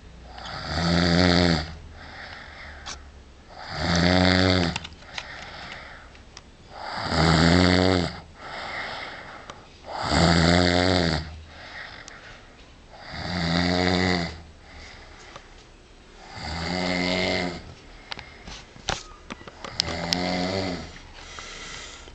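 A sleeping man snoring loudly and regularly: seven snores, one about every three seconds, with softer breathing between them.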